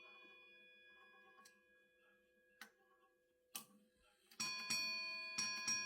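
1956 Chelsea ship's bell clock striking its bell in ship's-bell fashion. A struck note rings and dies away, two faint clicks of the mechanism follow, and then from about four seconds in the bell is struck in two quick pairs, each note ringing on.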